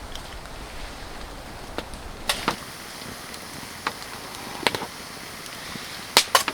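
Steady hiss of rain and wind, with a handful of sharp, irregular knocks and clicks, the loudest a quick pair near the end.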